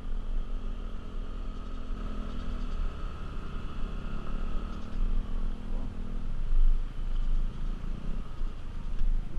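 Yamaha Aerox scooter's single-cylinder engine running as it climbs a steep lane, with wind rumble on the microphone. The engine note drops and picks up again a few times as the throttle changes.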